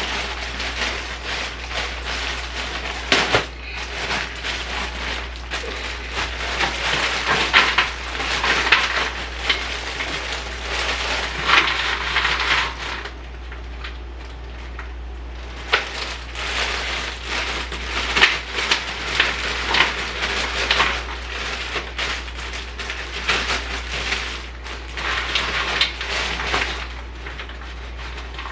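Frozen seasoned fries poured from a plastic bag onto a baking sheet: a dense stream of small crinkles and clatters, with a short lull about halfway through.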